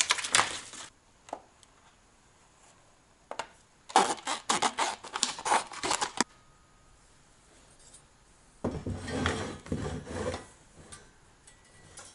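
Scissors cutting a thin clear plastic soda-bottle sheet: a quick run of snips and crinkles lasting about two seconds. About nine seconds in, a duller rubbing and knocking for under two seconds as a nickel strip is worked against a steel angle on the wooden workbench.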